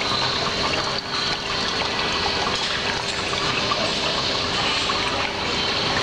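Water spilling over the rim of a tabletop crystal-ball fountain and splashing steadily into the basin below, with a faint steady hum underneath.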